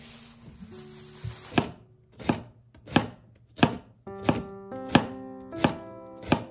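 Kitchen knife chopping through daikon radish onto a wooden cutting board: about eight even strokes, roughly three every two seconds, starting about a second and a half in.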